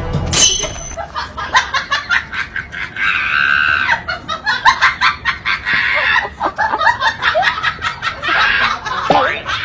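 A crowd of golden retriever puppies eating dry kibble from plastic bowls: quick crunching and clicking throughout, with high-pitched squeaks now and then.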